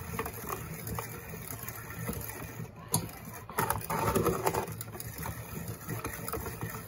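Hand-cranked food mill turning, its blade scraping over the metal sieve as it squishes soft cooked apples through, with irregular scrapes and clicks. A sharp click comes about three seconds in, followed by a louder stretch of wet scraping.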